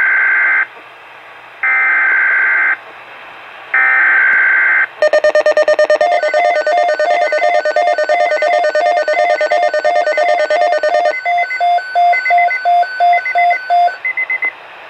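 Weather radio SAME alert: three one-second bursts of digital header data, a harsh buzzing screech, with short gaps between them. From about five seconds in comes a loud, rapidly pulsing electronic alert tone. Near eleven seconds it changes to slower separate beeps, about two a second, signalling an incoming severe weather bulletin.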